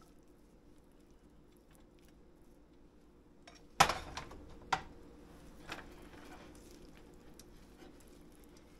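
Metal cookware clanking on the stove: one sharp clank about four seconds in, then two lighter knocks and faint clicks of utensils in the pans.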